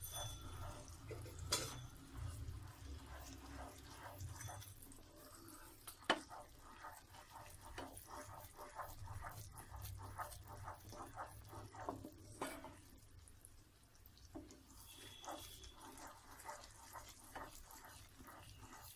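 Thick sugar syrup bubbling at a boil in a pan as it starts to turn to caramel, with a wooden spatula stirring and scraping through it. A few sharper knocks of the spatula against the pan stand out. Faint.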